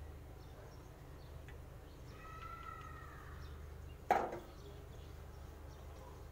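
A stainless-steel saucepan set down on a gas stove's grate: one sharp metallic clank with a short ring about four seconds in. Earlier, about two seconds in, a brief high-pitched tone sounds over a low steady hum.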